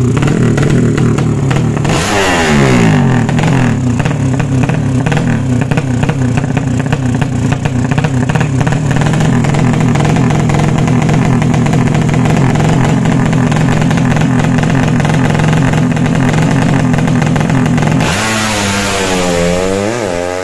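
Tuned 200 cc bebek (underbone) drag bike's single-cylinder four-stroke engine with a racing exhaust, running loud at a steady rev, with a brief drop and climb in revs about two seconds in. Near the end the sound falls back and the revs climb and drop several times in quick sweeps as the bike runs down the drag strip.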